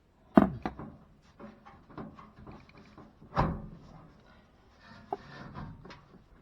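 Clunks and knocks from handling parts inside the open back of a front-loading washing machine: a loud knock about half a second in, another about three and a half seconds in, with lighter clicks and rattles between.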